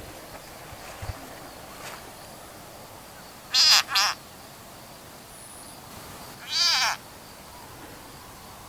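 An unidentified animal calling: two short, high-pitched calls in quick succession about three and a half seconds in, then a longer call a couple of seconds later.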